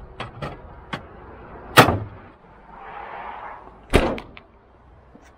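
Small metal clicks and a sharp thump as steel ammo cans are pushed into a fire engine's side compartment. About two seconds later comes a second loud thump as the metal compartment door is shut.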